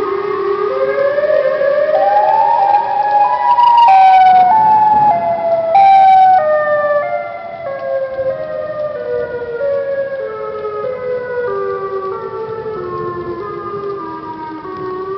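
Lightning (electrical-storm) warning siren wailing: its pitch climbs in small steps for about four seconds, then steps slowly back down for the rest, with two short bursts of hiss near the top.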